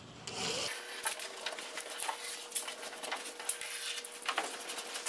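Scratchy rubbing and crinkling with many small clicks: the release backing being peeled off two-sided tape while a tailgate spoiler is pressed down along the tailgate. A faint steady hum sits underneath from about a second in.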